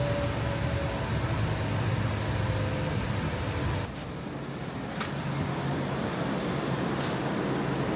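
Steady low rumble of a moving vehicle. About four seconds in the sound changes abruptly and becomes slightly quieter, with a single sharp click about a second later.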